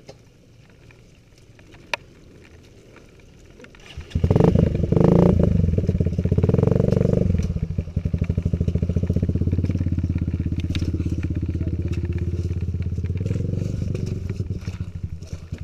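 Trail motorcycle engine starts sounding about four seconds in, revved hard for about three seconds, then held at a steady lower throttle until it fades near the end, with the bike mired in deep mud and being pushed out.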